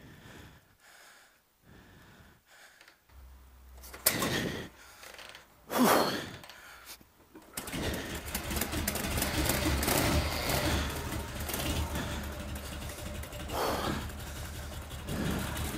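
Custom Harley-Davidson chopper's V-twin being kick-started: two hard kicks turn the engine over about four and six seconds in. It catches about seven and a half seconds in and keeps running steadily.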